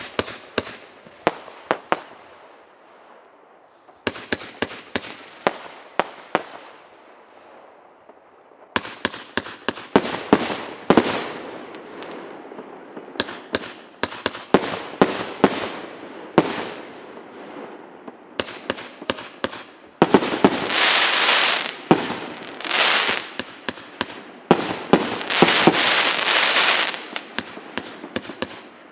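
A 160-shot consumer fireworks cake (0.8- and 1.25-inch tubes) fires volleys of rapid shots in groups a few seconds long, with short lulls between them. Around twenty seconds in, and again a few seconds later, the shots give way to long stretches of dense crackling from crackling crossettes.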